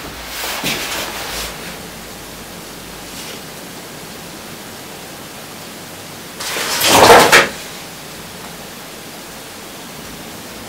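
Steady background hiss. About six and a half seconds in comes a loud, crackly rustle lasting about a second, as a thin clear plastic cup is picked up and handled.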